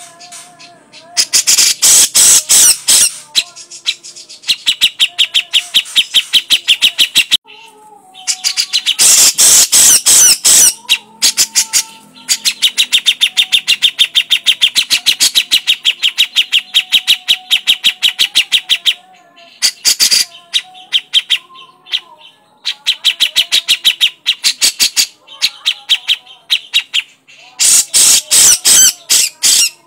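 Grey-cheeked bulbul (cucak jenggot) giving its harsh chattering "crecetan" call: rapid rattling strokes run in bursts of one to several seconds, with short pauses between them.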